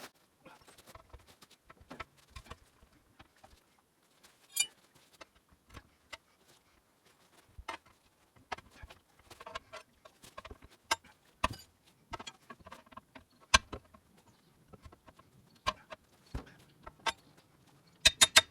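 Metal tyre levers clinking and knocking against the wheel rim as a tractor tyre is levered back onto the rim over its inner tube: irregular sharp clicks, some loud, with a quick run of clinks near the end.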